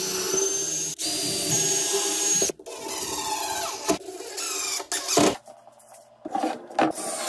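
Cordless drill driving wood screws into a pine frame, its motor whining in several runs of a second or two with short stops between them, the pitch dropping away as it stops.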